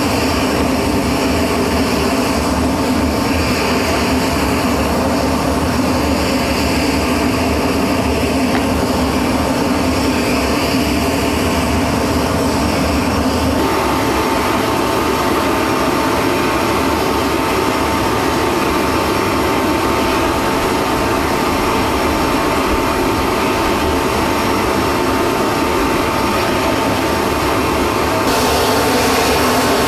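Steady jet aircraft engine noise, with no break or rise or fall. About halfway through the sound changes abruptly and a steady high whine joins it.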